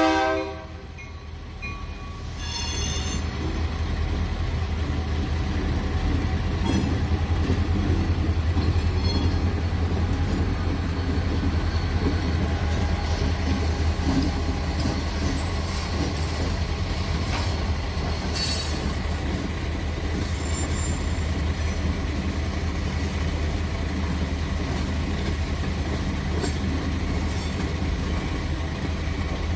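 Freight train rolling past: a steady, heavy low rumble of the cars on the rails, with a short high-pitched wheel squeal about three seconds in and fainter squeals now and then.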